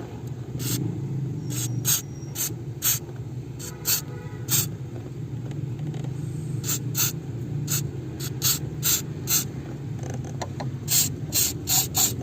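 Clutch pedal being pumped repeatedly, its pivot and linkage giving short rasping rubs, more than a dozen of them at irregular intervals and coming fastest near the end, over a low steady hum. The clutch is being tested after its squeak was treated with WD-40.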